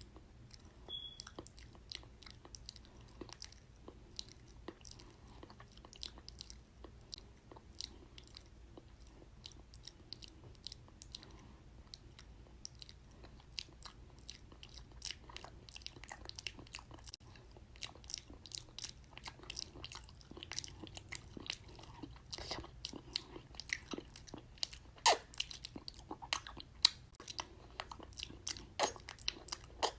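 ASMR mouth sounds: a steady run of short clicks and smacks from a person's mouth, coming more often in the second half, with a few louder smacks near the end.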